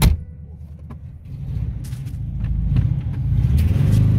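A car door slams shut, cutting the cabin noise down. Then the ZAZ-968M's rear-mounted air-cooled V4 engine rises in revs from about a second in as the car pulls away in first gear.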